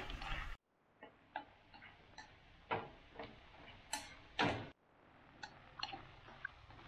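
Wooden chopsticks tapping and scraping against a metal wok as sliced luffa and oyster mushrooms are stir-fried: light, uneven clicks about two a second. The sound drops out briefly twice.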